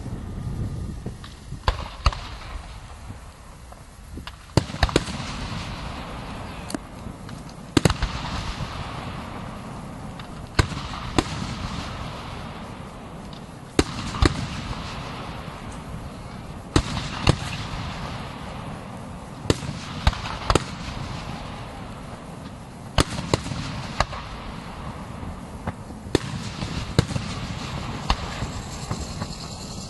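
Fireworks display: shells bursting with sharp bangs every second or two, some followed by crackling, over a steady low rumble of the ongoing show.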